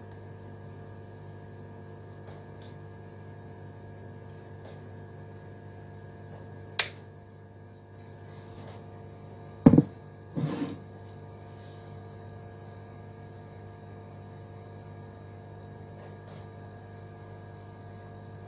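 Steady electrical mains hum, with a sharp click about seven seconds in and two knocks around ten seconds in as a box is set down on a wooden table.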